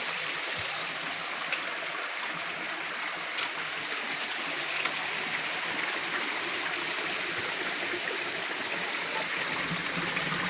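Stream water running steadily, with two short clicks in the first few seconds.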